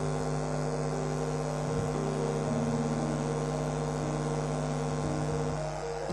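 Soft ambient background music: a steady drone of sustained low notes that shift in pitch a few times.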